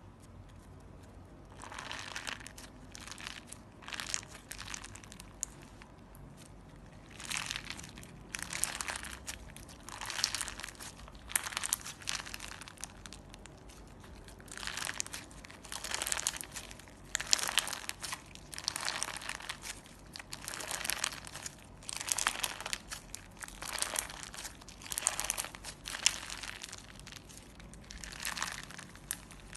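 Hands squeezing and kneading clear slime mixed with glitter and small balls, making short squishing, crunching sounds in repeated bursts about once a second, with a couple of brief pauses.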